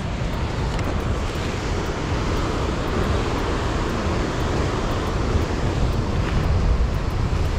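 Rough sea surging and washing against rocks, with wind buffeting the microphone: a steady rumbling rush that swells slightly near the end.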